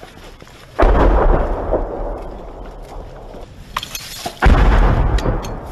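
Two loud explosions about four seconds apart, each a sudden boom followed by a rumble that fades over a second or two.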